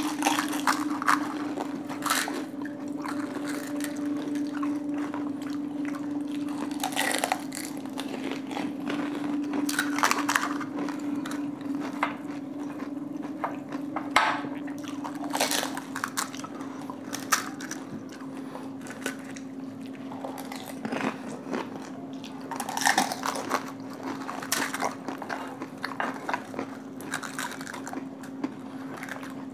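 Crisp panipuri (golgappa) shells crunching as they are bitten and chewed, in scattered bursts, over a steady low hum.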